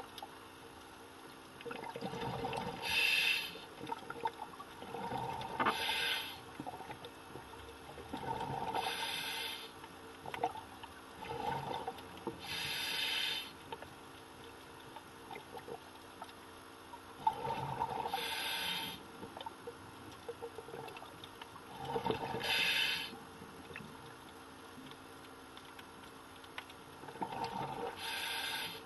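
Scuba diver breathing through a regulator underwater, heard through the camera housing: about seven breaths, each a burble of exhaled bubbles followed by a short sharp hiss of inhaled air.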